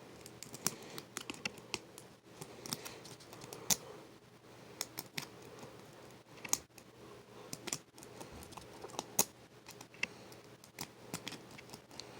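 Lock pick and tension wrench working the pin tumblers of a 44 mm laminated steel padlock: irregular light clicks, a few sharper than the rest.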